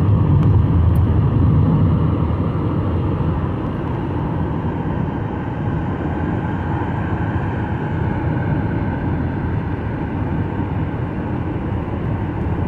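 Steady road noise inside a moving car: a low rumble of tyres and wind, easing slightly a couple of seconds in.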